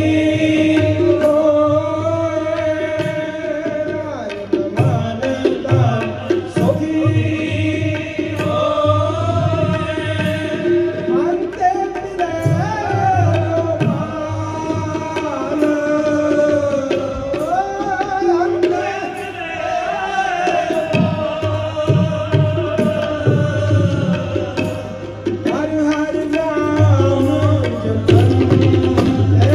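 Sikh shabad kirtan: male voices singing over two Yamuna harmoniums, with a tabla playing the rhythm.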